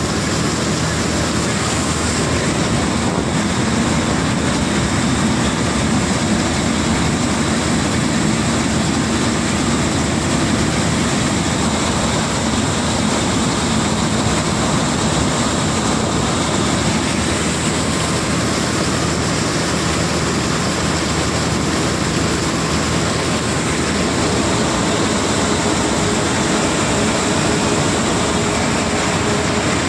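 Combine harvester running steadily while its unloading auger empties the grain tank into a trailer: a continuous, even machine drone.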